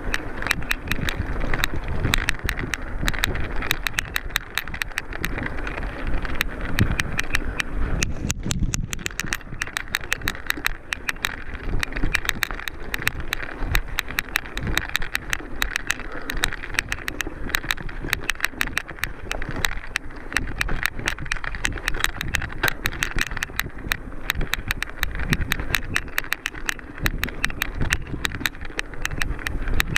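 Mountain bike ridden over a rough trail, picked up by a camera carried on the bike or rider: tyres on dirt and stones with continuous rattling and clattering and a steady low rumble.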